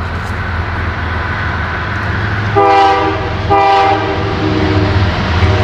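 Diesel locomotive's multi-chime horn sounding two blasts about a second apart, past the middle, then fainter horn tones near the end, over the steady low rumble of the locomotive running.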